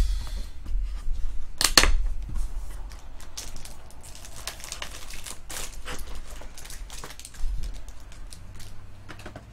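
Plastic shrink wrap torn and crumpled off a trading card hobby box, then the cardboard box opened and the wrapped card packs inside handled: a run of crinkles and light clicks, loudest about two seconds in.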